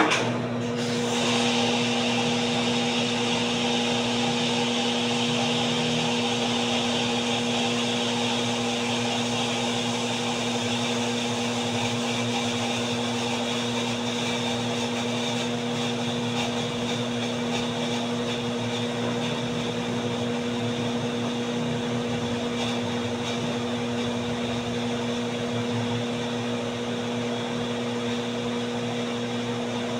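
An electric motor switches on suddenly and runs with a steady hum and a high hiss.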